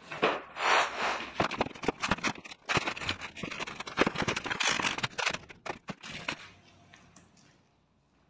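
Rustling, crinkling and scraping of a deflated air mattress's plastic and fabric as it is folded and stuffed into its carry bag, in a dense run of irregular crackles that dies away about six and a half seconds in.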